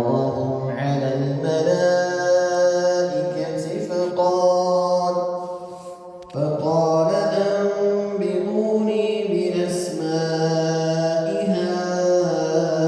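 A male voice reciting the Qur'an in Arabic in a melodic, chanted style through a mosque's amplified speaker system. Long phrases are held on sustained notes, with a short breath pause about halfway through before the next phrase begins.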